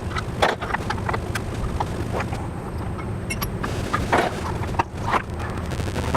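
Irregular clicks and knocks of a driver and plastic parts as the screws holding a string trimmer's handle and cover are worked loose.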